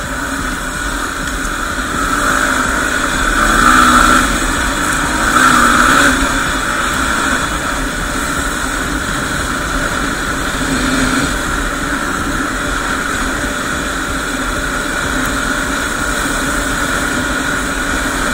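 Yamaha WR250R's single-cylinder four-stroke engine running steadily while the motorcycle is ridden, swelling louder twice, about four and six seconds in.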